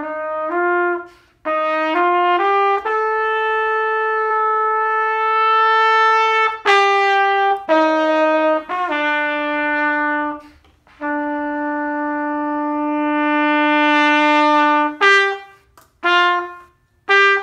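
Solo trumpet playing a band part: a run of short notes stepping upward, then long held notes, the second swelling louder, and short detached notes near the end.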